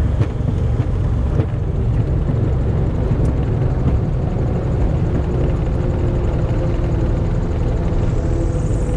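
Diamond DA42 twin's engines and propellers running at low power, a steady drone heard inside the cabin as the aircraft rolls along the runway, with a couple of faint clicks near the start.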